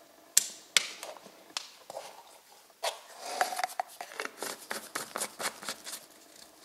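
Plastic screw cap being fitted and twisted onto a plastic engine-oil bottle by gloved hands. Two sharp clicks come in the first second, then from about three seconds in a quick run of clicks and scraping as the cap turns on the threads.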